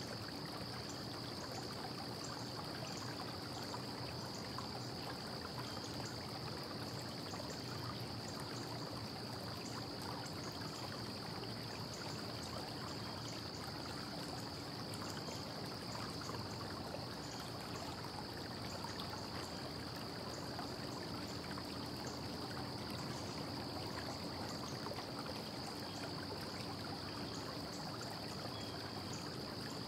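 Steady, even hiss with a constant faint high-pitched whine and a low hum underneath; no separate tool or impact sounds stand out.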